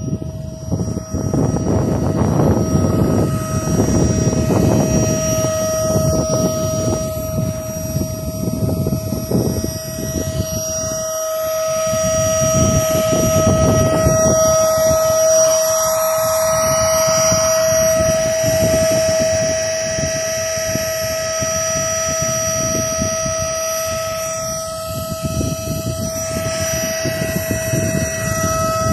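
Airbank Puffer Pro electric pump running as it inflates a kite's leading edge, a steady high motor whine that holds one pitch throughout, over a low, uneven rumble.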